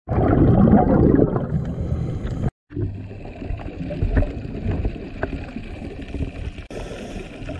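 Muffled underwater rushing and gurgling, as heard on a microphone below the surface. It is loud for the first two and a half seconds, drops out for an instant, then carries on quieter with a few scattered clicks.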